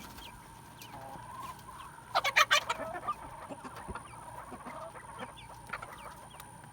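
Quail chirping and clucking softly, with a louder burst of several quick calls about two seconds in.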